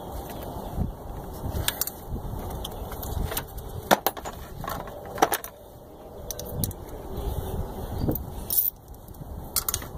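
Metal hand tools and parts clinking as they are handled, with scattered sharp clicks, the loudest about four and five seconds in, over low rustling handling noise.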